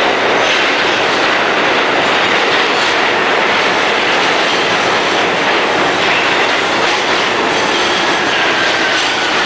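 New York City subway train passing close by at speed: a loud, steady rumble and rattle of the cars and wheels on the track. A faint high whine slides down in pitch near the end.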